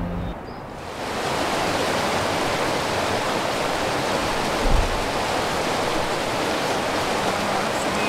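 Steady rushing of a creek's flowing water, with a single low thump about halfway through.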